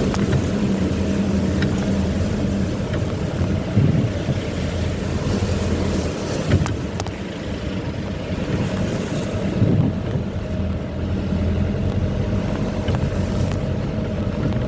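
A safari jeep's engine running steadily as it drives over rough off-road track, with a few scattered knocks and rattles.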